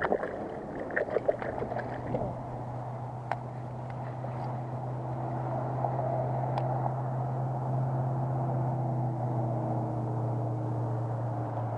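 A released fish splashes and slaps briefly in shallow water at the bank. From about two seconds in comes a steady low hum with a few fainter overtones, from an unseen motor.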